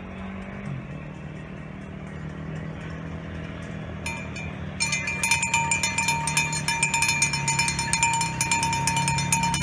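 Escort motorcycles running at low speed as they approach. From about five seconds in, the engines are overtaken by a loud, rapid metallic clanging of cowbells being shaken.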